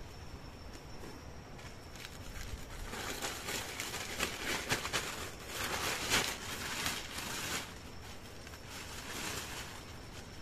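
Thin plastic sheet crinkling and rustling as it is handled and shaken, starting a few seconds in and loudest just past the middle, with a softer spell of rustling near the end.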